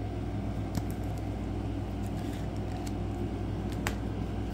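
Steady low background hum, with a few faint clicks of trading cards being handled, about a second in and again near the end.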